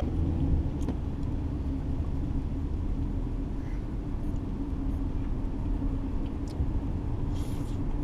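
Car running, heard from inside the cabin: a steady low rumble with a faint even hum.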